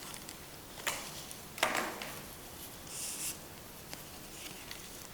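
Glued craft paper and cardboard being handled and pressed together: a few short rustles and light rubbing noises, with a small knock about a second in.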